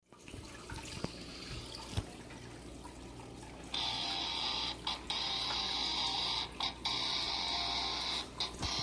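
Aquarium water bubbling and rushing, faint at first, then much louder from about four seconds in with a few brief dips.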